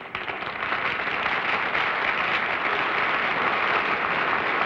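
Studio audience applauding, breaking out at once and holding steady.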